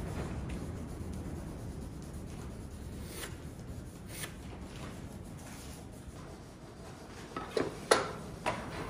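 Pencil rubbing and scratching as it marks a line along a metal speed square on plywood. Near the end, a few sharp knocks as a board is set onto a miter saw's table.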